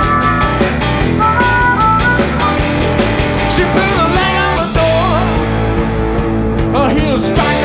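Live rock band with electric guitar, bass and drums playing. A harmonica plays held chords through the microphone for the first two seconds or so, and pitch-sliding lines come in from about the middle.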